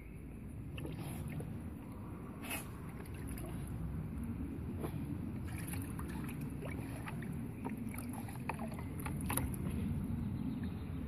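Water sloshing and splashing in a plastic paddling pool as a dog paws and pushes its muzzle into it, with many small splashes that come more often in the second half, over a steady low rumble.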